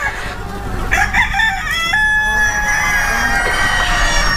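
Several desi (gavran) roosters crowing in overlapping calls, one long crow rising in steps about two seconds in and held to the end, with hens clucking in the flock.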